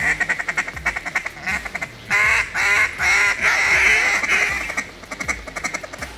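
Duck call blown by a hunter: a rapid chattering feeding chuckle, then about two seconds in a run of four or five loud, drawn-out quacks, then back to the fast chuckle.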